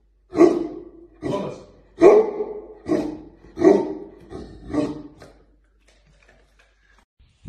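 Large black dog barking on command, a run of six or seven single barks about a second apart that stops a little after halfway.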